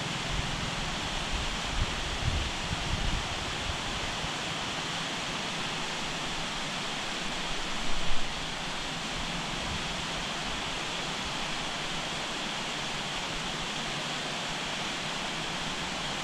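Steady rushing hiss of wind and distant running water, with gusts buffeting the microphone in a few low thumps, the strongest about eight seconds in.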